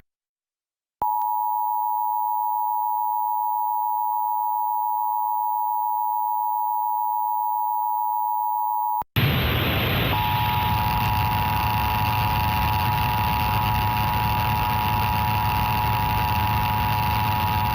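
Emergency Alert System two-tone attention signal (853 Hz and 960 Hz together), held steady for about eight seconds. It cuts off abruptly and loud hiss with a low hum takes over. About a second later the same two-tone signal returns under the noise and runs on.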